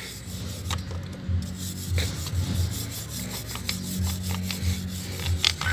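Steel wire brush scrubbing a rusty motorcycle drive chain in repeated short, scratchy strokes to scour off the rust.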